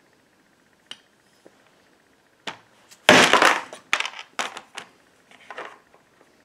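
Red soft-faced mallet striking the spine of a knife held on a wooden block, chopping lead into cut shot: a faint click about a second in, then a run of sharp knocks and clatters from about two and a half seconds in, the loudest a longer rattling burst about three seconds in.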